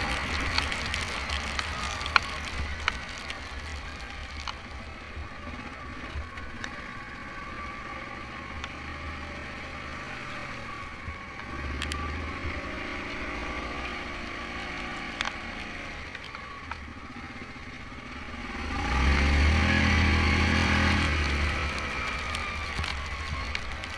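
Yamaha Grizzly 700 ATV's single-cylinder engine running as the quad is ridden, with the throttle opened briefly about twelve seconds in and harder from about nineteen to twenty-two seconds. Scattered sharp ticks sound over the engine.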